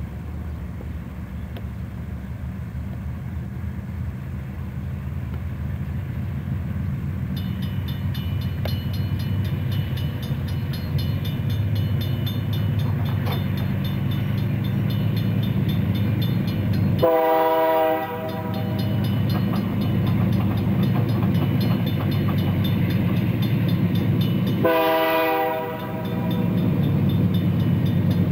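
Diesel freight locomotives hauling a double-stack container train approach, their engines running with a steady low rumble that grows louder. The locomotive horn sounds two short blasts of about a second each, the first about two-thirds of the way in and the second near the end.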